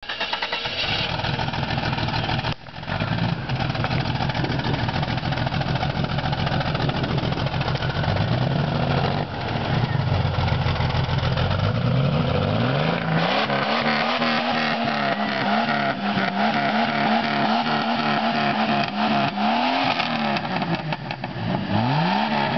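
1995 Jeep Cherokee XJ's 4.0-litre straight-six engine running, first at a steady idle with one brief rev, then revved up and held at higher revs from about halfway, with several quick blips of the throttle near the end. It is being run hard to burn off Sea Foam cleaner, which is blowing out as thick white exhaust smoke.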